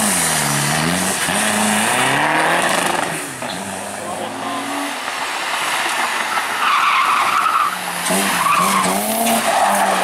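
Rally car engines revving hard and bouncing off the rev limiter as the cars slide and spin, first an Audi A4, then a BMW E30. About seven seconds in, a tyre squeals for roughly a second.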